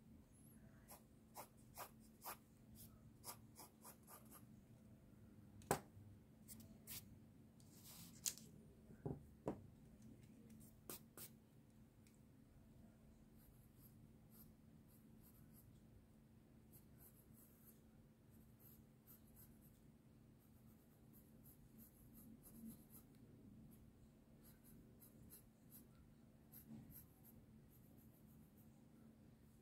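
Faint scratching of a mechanical pencil drawing on sketchbook paper, with a run of short, sharp ticks and taps during the first dozen seconds.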